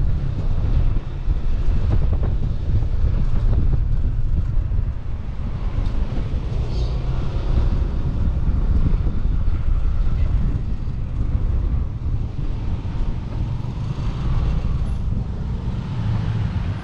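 Steady low rumble of wind buffeting the microphone and a motorcycle running, heard from the rider's seat while riding along.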